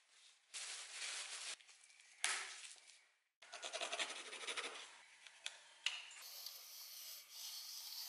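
Paper rustling and crinkling as it is pressed around a blade, louder for a moment about two seconds in; then, after a brief gap, a pencil scratching lines onto a wooden board in quick fine strokes.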